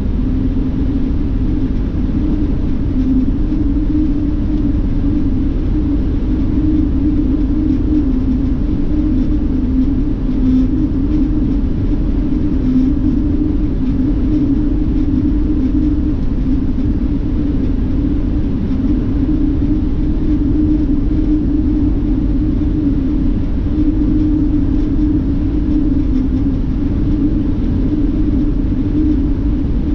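Steady cabin drone of a coach bus cruising at highway speed: a low road and engine rumble with a constant hum, unchanging throughout.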